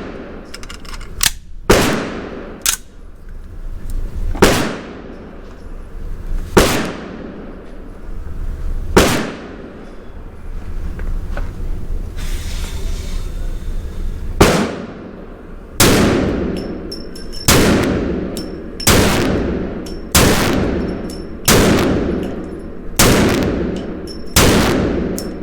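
Desert Eagle .50 AE pistol with an integral muzzle brake firing single shots, about a dozen in all: spaced a couple of seconds apart at first, then after a pause every second and a half or so. Each shot is a sharp, loud crack with a reverberating tail.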